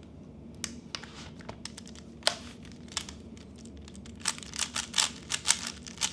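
A plastic 3x3 speedcube being turned by hand: quick, uneven clicks of its layers snapping, sparse at first and coming faster and louder toward the end.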